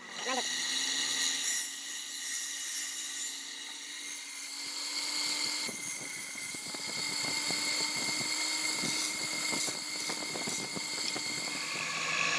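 An electric power tool running with a steady high whine. From about five seconds in it is joined by many quick clicks and rattles.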